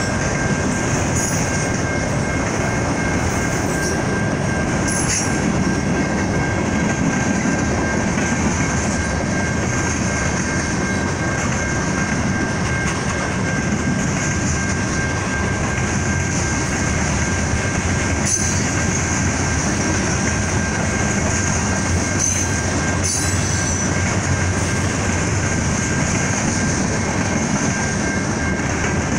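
Freight train rolling past at a grade crossing: a steady, unbroken rumble of cars and wheels on the rails, with a thin steady high-pitched whine over it.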